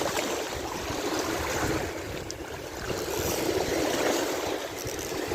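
Water lapping steadily against the rocks along a dam's face, with a low wind rumble on the microphone.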